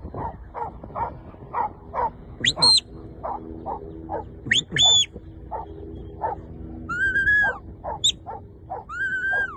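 Sheepdog barking in a steady run, two to three barks a second, while shrill shepherd's whistle commands sound over it: two short high whistles in the first half and two longer, lower whistled notes later.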